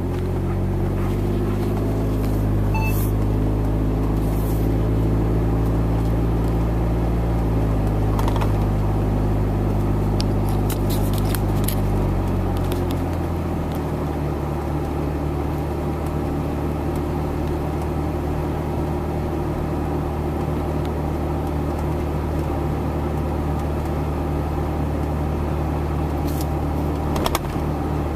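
An engine running with a steady low hum; its pitch drops about 13 seconds in and then holds steady at the lower pitch.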